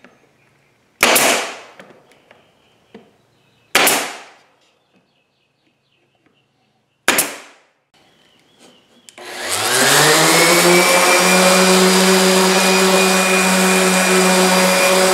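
Three sharp shots from a pneumatic stapler driving staples into wooden trim, a few seconds apart. About nine seconds in, a DeWalt random orbit sander starts up, its pitch rising as it comes up to speed, and then runs steadily.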